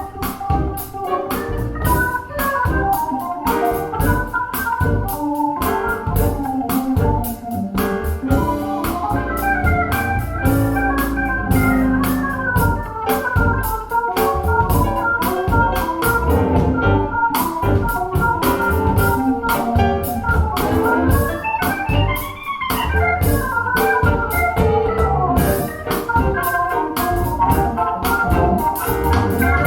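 Music played back through a pair of PSB Alpha P5 bookshelf speakers: a busy keyboard or organ-like melody over bass, with a steady beat of percussive hits.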